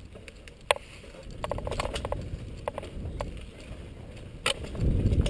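Mountain bike rolling over a rocky dirt trail: a steady rumble of tyres and wind on the microphone, broken by sharp clicks and short rattles as the bike jolts over stones, with the rumble swelling near the end.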